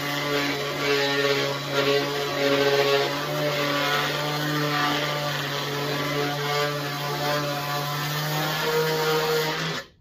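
Electric orbital sander, its dust-extraction hose attached, running flat against a panel: a steady motor hum under a rough sanding hiss. The sound cuts off suddenly near the end as the sander is switched off.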